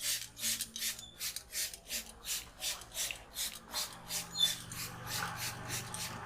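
Hands rubbing vigorously through hair and scalp in a head massage: quick, even, hissy strokes, about three a second, which grow fainter after about four seconds.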